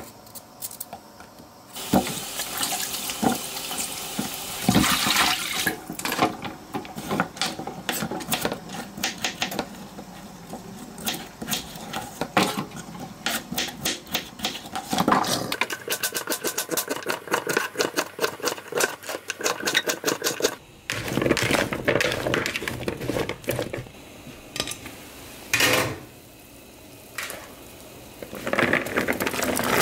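Knife chopping chocho (chayote) on a wooden cutting board: a long run of quick, sharp taps of the blade against the board. In the last part, water bubbling and rushing as the soup pot boils hard.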